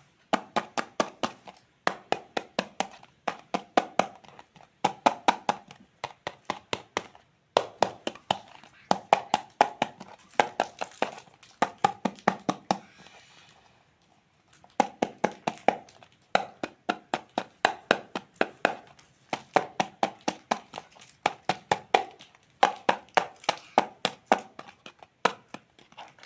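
Toy knife chopping plastic toy fruit on a cutting board: quick runs of sharp taps in bursts of a second or two, with short pauses between.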